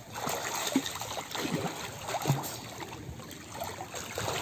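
Floodwater splashing and sloshing as a person moves through it, in irregular strokes over a steady wash of water.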